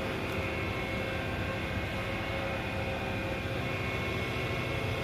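Desktop PC power supply fan running steadily: an even whir with a few steady tones, after its noise problem was fixed.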